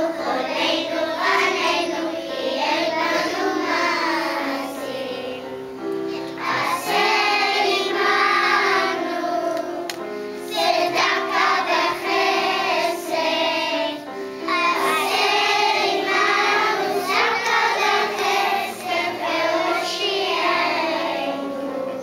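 A choir of young children singing a song together, phrase after phrase with short breaks between.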